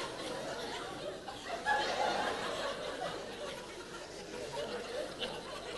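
Theatre audience murmuring with scattered quiet laughter.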